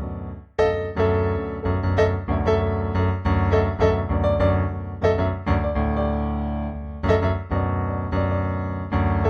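Solo piano music, notes struck one after another with a brief break about half a second in.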